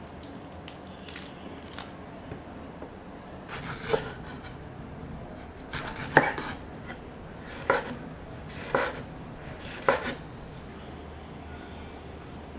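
Kitchen knife slicing yellow peaches on a wooden cutting board: about five sharp knocks of the blade cutting through the fruit and striking the board, a second or two apart, starting a few seconds in, with a few fainter taps before them.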